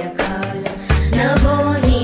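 Indian devotional music: a melodic singing voice over drum beats and held bass notes.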